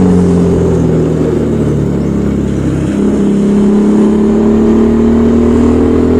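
Motorcycle engine and exhaust running under way. The engine note holds, breaks briefly near the middle, then climbs steadily as the bike accelerates.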